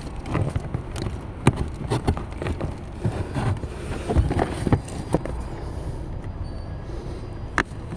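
Irregular clicks and knocks from hands working on something, with one sharper knock near the end, over a steady low rumble.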